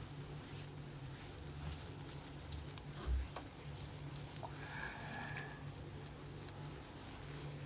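Faint scattered clicks and light taps of handling over a steady low hum, with a brief faint high whine about five seconds in.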